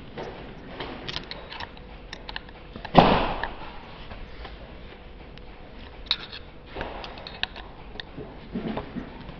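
Hands handling small metal parts while assembling a swivel joint: scattered light clicks and taps of a metal pin against the housing, with one much louder knock and rustle about three seconds in.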